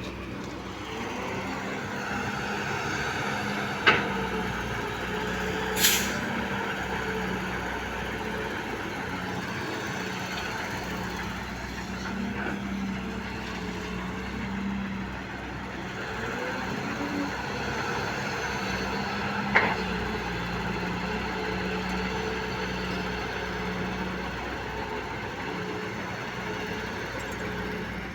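Heavy diesel engine running steadily at an even pitch, with a few short sharp sounds over it, one of them a brief hiss.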